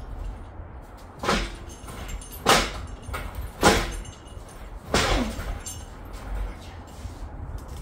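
Engine hoist loaded with a 351 Windsor engine and transmission on chains, clanking and creaking as it is shoved along the pavement. Four sharp metal clanks come about a second apart, some ringing briefly, and a falling creak follows the last.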